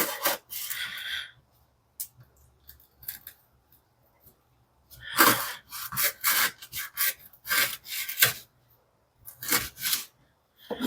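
A folding knife blade, used unsharpened out of the box, sawing through thick jute rope in rasping strokes. A short group of strokes comes first, then a quick run of about nine strokes in the middle and a few more near the end.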